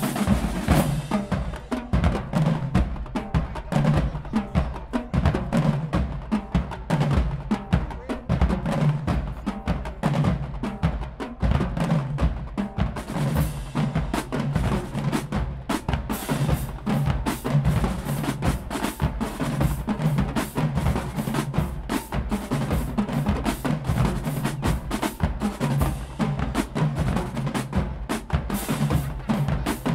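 College marching band drumline playing a fast, dense cadence on snare drums, tenor drums and bass drums.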